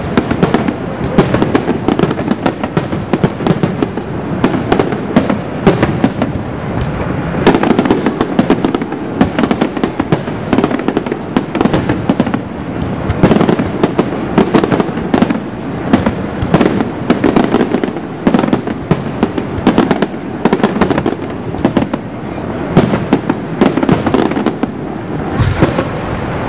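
Aerial fireworks display: a rapid, continuous barrage of shell bursts and cracks, many sharp reports a second over a steady rumble.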